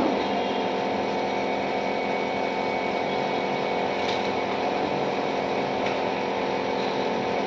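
Small electric compressor of a nebulizer running with a steady buzzing hum.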